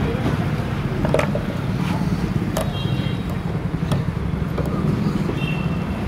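Steady low rumble of road traffic, with a few sharp metal clicks from wire and pick tools being worked into a car lock cylinder held in a vise.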